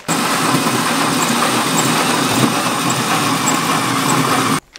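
Cordless drill with a large hole saw cutting through a van's sheet-metal body panel: a loud, steady grinding cut that starts and stops suddenly.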